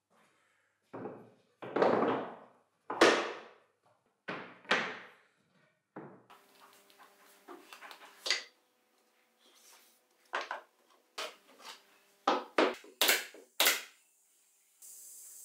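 Hard plywood strips knocked and set down on a wooden workbench: several hollow wooden thunks in the first six seconds. Near the end comes a quick run of about seven sharp cracks from a nail gun fastening the glued parts, and a steady hiss starts just before the end.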